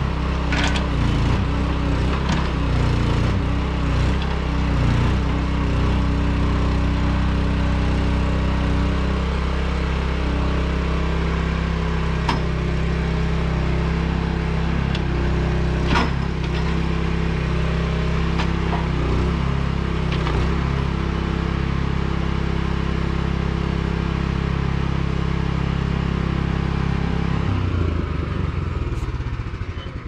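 An engine running steadily at one constant speed, with a few sharp metallic clanks and knocks over it; the sound fades away near the end.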